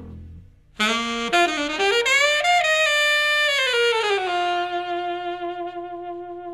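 Background music: a saxophone plays a melody that starts about a second in, rises and falls, then settles on one long held note that fades out near the end.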